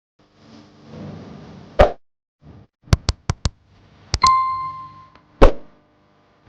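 A series of sharp sound-effect hits: a swelling hiss ending in a loud hit, a quick run of four clicks, two clicks followed by a short bell-like ding, then another loud hit.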